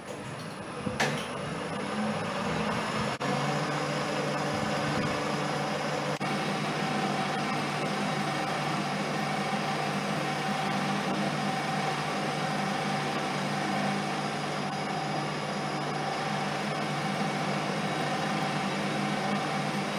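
Metal lathe starting up after a click about a second in, then running steadily with a steady hum while a tool turns a mild steel bar held in a four-jaw chuck.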